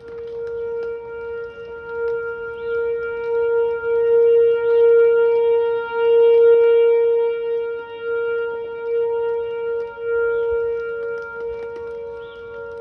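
Whelen 4004 electronic tornado siren sounding a steady alert tone: one loud held pitch with overtones that swells and fades in loudness.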